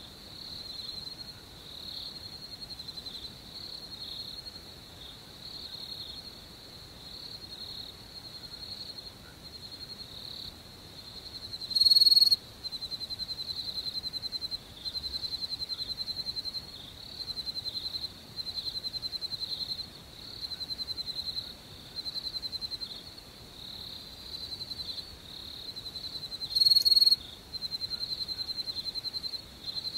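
Crickets chirping in a night chorus: rapid high-pitched trills in bouts of about a second with short gaps between them. Twice, about twelve seconds in and again near the end, a much louder, sharper chirp stands out above the rest.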